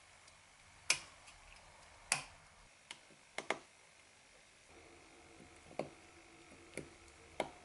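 Small sharp clicks as iPhone 13 flex-cable connectors are pressed by a gloved fingertip onto their board-to-board sockets on the logic board and snap into place. There are about eight clicks, the two loudest about one and two seconds in.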